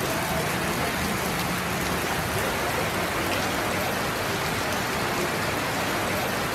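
Heavy rain pouring down onto a flooded street: a steady, dense hiss.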